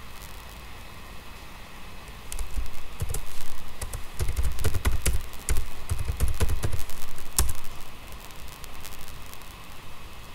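Typing on a computer keyboard: a quick run of key clicks with dull thumps, busiest in the middle and thinning out near the end.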